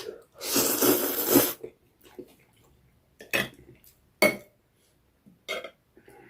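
Close-up eating sounds: a long, loud slurp of noodles about half a second in, then three or four short, sharp crunches or clicks as the eating goes on.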